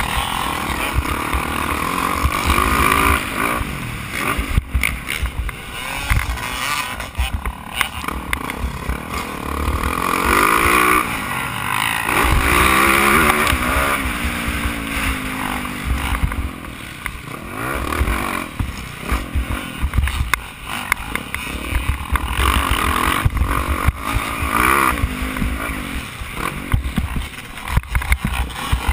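Yamaha YZ450F motocross bike's single-cylinder four-stroke engine, heard from on board, revving up and falling off again and again as the rider accelerates and shifts around the track, with wind noise over the microphone and occasional knocks from bumps.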